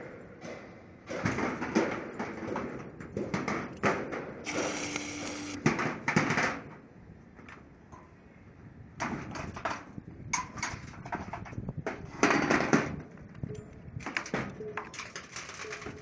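Stud welding gun firing a headed steel shear connector stud onto steel decking: a steady buzzing arc lasting about a second, a little after four seconds in. Around it, sharp metallic knocks and taps on the steel deck.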